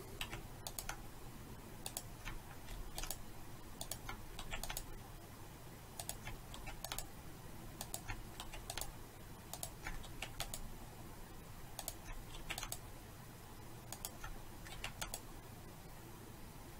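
Computer keyboard and mouse clicks as the Ctrl+R loop-cut shortcut is pressed again and again, each cut placed with a click. The clicks come in small clusters about every second, over a faint low hum.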